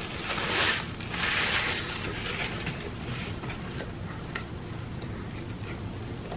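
Paper napkin rubbed over the mouth: two rough rustling bursts in the first two seconds. Then faint closed-mouth chewing with small wet clicks.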